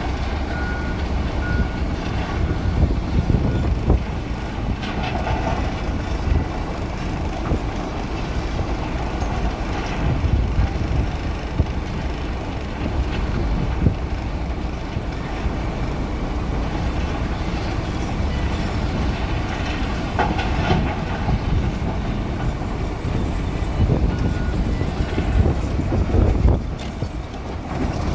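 Backhoe loader's diesel engine running under work, with a steady low rumble and frequent metallic clanks and knocks.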